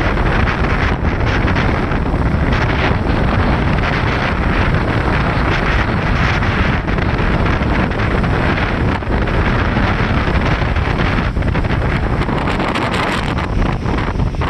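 Strong typhoon wind blowing hard and steadily across the microphone, buffeting it without a break.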